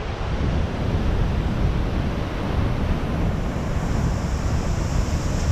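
Steady rush of water with wind buffeting the microphone, a constant low rumble under a hiss.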